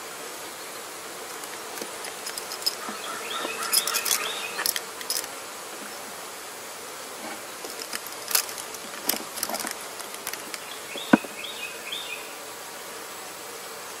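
Honey bees humming around an open Langstroth hive, with the clicks, scrapes and squeaks of a hive tool prying the wooden frames loose. The work comes in two busy stretches, with a sharp click about eleven seconds in.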